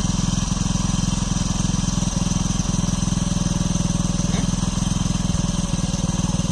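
An engine running steadily at an even, fast beat, with a faint high whine above it.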